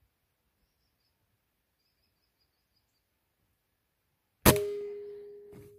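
A single PCP air rifle shot about four and a half seconds in: a sharp crack followed by a metallic ringing tone that fades away.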